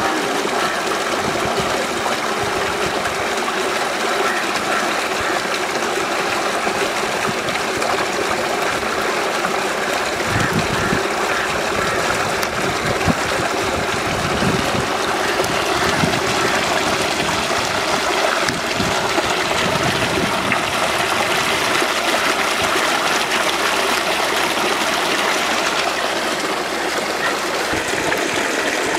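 Steady rushing noise, like running water, with no distinct strokes or events.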